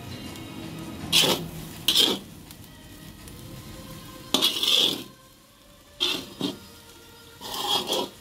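A spatula scraping and tossing fried rice in a pan, in about six separate strokes, some short and some drawn out for about half a second.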